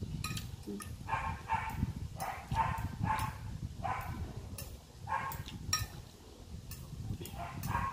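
A metal spoon and fork clinking and scraping in a glass baking dish while eating, with a string of short, high yaps sounding about once or twice a second.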